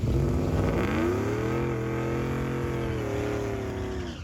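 Engine revving up over about a second, then held at steady high revs before cutting off suddenly.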